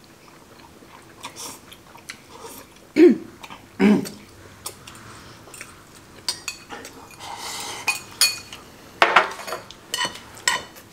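Metal chopsticks clicking and scraping against a cooking pot as instant ramen noodles are scooped up, with noodles slurped in between.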